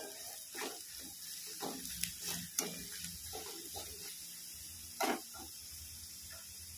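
Spatula scraping and knocking against a kadhai while stirring onion, garlic and coconut frying in oil: irregular strokes, several a second, over the first four seconds, with a louder scrape about five seconds in.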